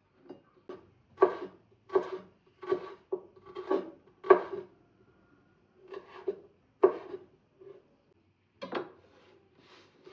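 Repeated rasping, rubbing strokes against wood, about one every two thirds of a second, then a short pause and a few slower strokes near the end.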